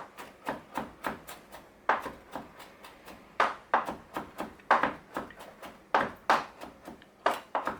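Kitchen utensils clicking and tapping against dishes in an irregular string of sharp knocks, about twenty in all, some in quick clusters.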